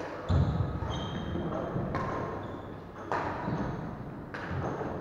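Badminton doubles rally on a wooden court: rackets hitting the shuttlecock about four times, the first hit with a heavy thud of feet on the floor. Short high squeaks, shoes on the wooden boards, come between the hits.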